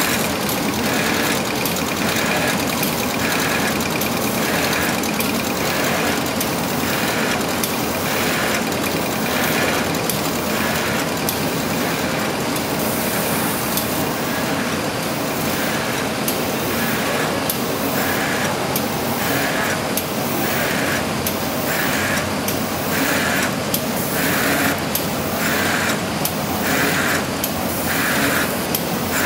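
OPP film laminating machine with a chain-knife cutter running at production speed: a steady, loud machine noise with a regular beat recurring about three times every two seconds.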